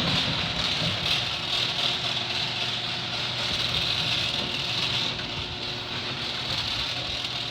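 Genie ScrewDrive garage door opener running, its screw drive moving the door down after a keypad code: a steady, noisy mechanical drone with a low hum that gets stronger about five seconds in.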